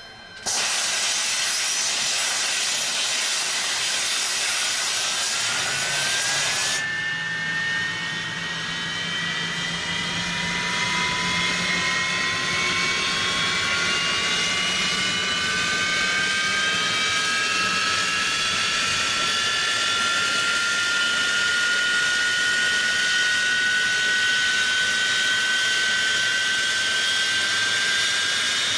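Jet airliner engines running up for takeoff: a loud, steady rush of noise starts suddenly about half a second in. From about seven seconds it gives way to a roar carrying a whine of several tones that rise slowly in pitch as the engines spool up.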